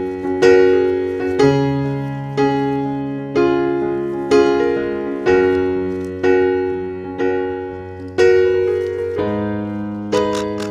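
Piano or electric keyboard music: slow chords struck about once a second, each ringing and fading, over a held bass note that changes a few times.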